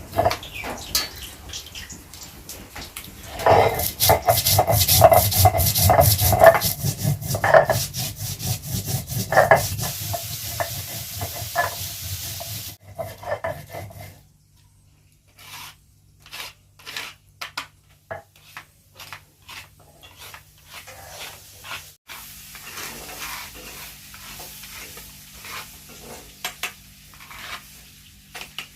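Kitchen cooking sounds: utensils scraping, stirring and knocking against pots, with a loud hissing, clattering stretch in the first half that gives way to quieter scattered clicks.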